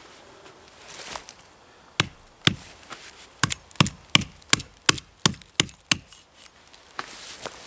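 Axe blows on a pine trunk: about a dozen sharp chopping strikes, roughly two or three a second, starting about two seconds in and stopping about six seconds in.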